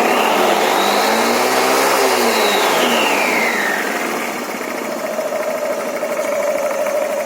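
Honda Forza MF-08 scooter's single-cylinder engine and automatic variator running, revved up once and easing back to a steady idle. No variator knock is heard: the new belt, reworked variator key and completed initialisation have cured it.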